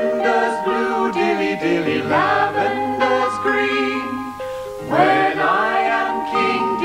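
Two men and a woman singing a song together in harmony over a light instrumental accompaniment, in phrases that begin about two and five seconds in.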